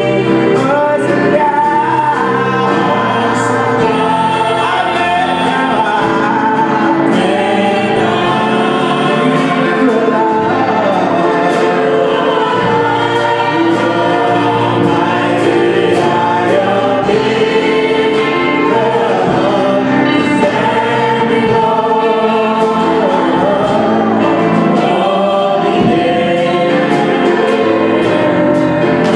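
Gospel worship choir and lead singers singing a slow song into microphones, backed by a live band with drums and cymbals keeping a steady beat.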